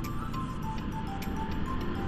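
Background music: a melody of short notes over a light, steady beat.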